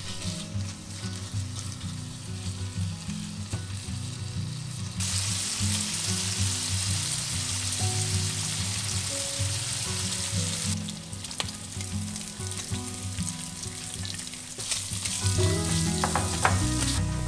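Bacon pieces sizzling in hot oil in a nonstick frying pan as they are stirred and turned. The sizzle grows much louder about five seconds in and eases back around eleven seconds.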